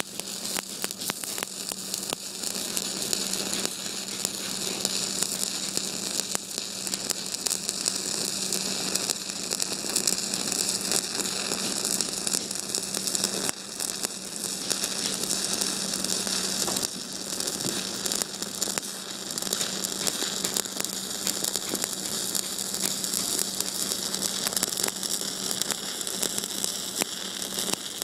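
Electric arc welding: the arc crackling and sizzling steadily, with a constant low hum underneath.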